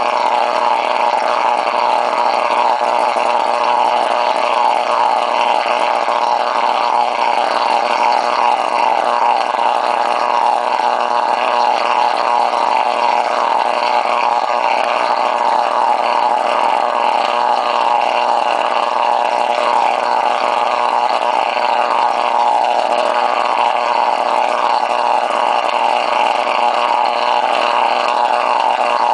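Spark plug arcing underwater against a screen electrode in a homemade plasma electrolysis (CFR/HHO) cell: continuous plasma sparking with a steady harmonic, echo-like ringing tone over it, which sets in only after the unit has run longer than a minute.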